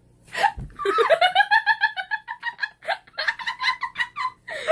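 A girl laughing in a high voice, in rapid pulses, in two bouts: one from about half a second in and another from about three seconds in.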